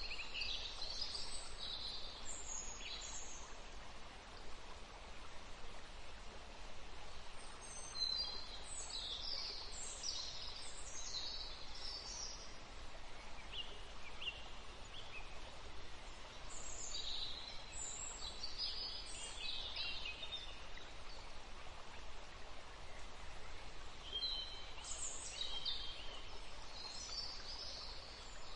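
Small birds chirping in high, quick calls that come in four spells of a few seconds each, over a steady faint outdoor background hiss.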